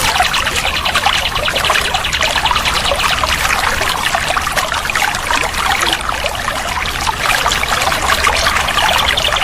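Water trickling and splashing steadily, as from a small stream or waterfall.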